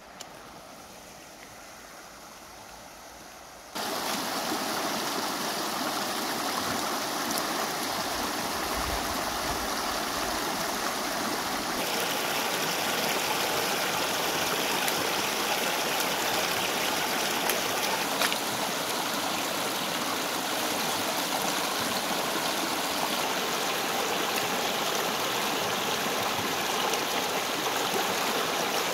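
Shallow rocky river flowing: a faint rush of water that turns into a loud, steady rush about four seconds in, with occasional splashes from hands washing food in the current.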